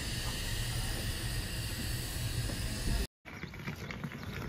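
Express passenger train rolling slowly into the platform, heard from an open coach doorway as a steady rumble and hiss of wheels on rail. It cuts off abruptly about three seconds in, and fainter outdoor ambience follows.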